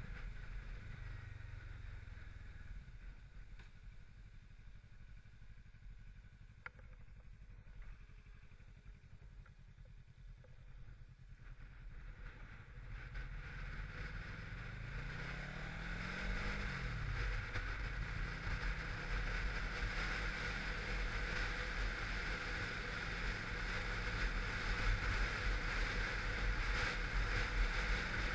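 Kawasaki Versys 650 parallel-twin engine, faint at first, revving up and back down about halfway through, then running steadily and growing louder toward the end, with wind noise.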